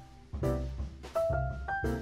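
Light jazzy background music with piano notes over a steady low beat.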